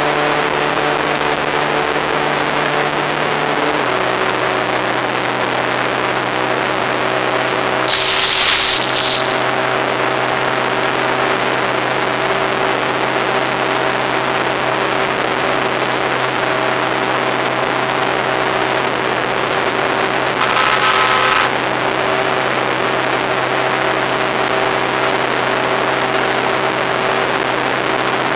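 Sport motorcycle engine running steadily at high cruising speed, heard under heavy wind and road noise; its note drops slightly about four seconds in. A loud rush of noise cuts in briefly about eight seconds in, and a shorter, weaker one with a faint tone comes about twenty seconds in.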